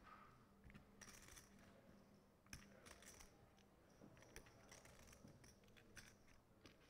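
Poker chips clicking faintly and irregularly as they are handled at the table, over quiet room tone with a low steady hum.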